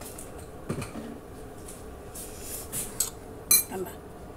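Tableware being handled: a soft knock about three-quarters of a second in, then one sharp clink near the end, like a utensil or fingers against a ceramic plate.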